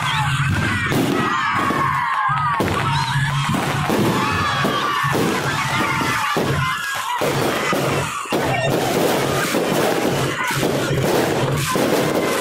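Aerial fireworks bursting and crackling in a dense barrage, with a crowd's voices mixed in.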